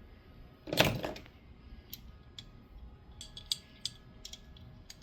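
A short metallic clatter about a second in, then scattered light metal clicks and ticks: stainless Allen-head bolts and an Allen key being handled and the bolts started loosely into a motorcycle engine's case cover.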